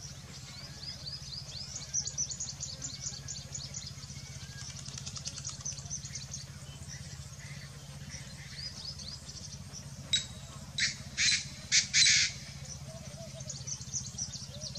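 Painted francolin giving a loud, harsh call of four notes, from about ten seconds in, over a background of rapid, high chirping from smaller birds.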